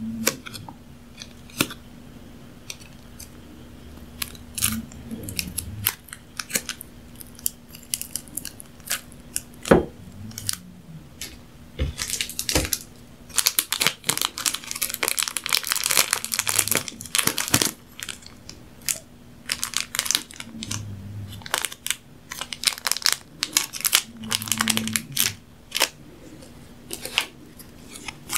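Small plastic condiment packet crinkling and being picked and torn at by fingers, close to the microphone: scattered sharp crackles and clicks, with a dense run of crinkling about halfway through.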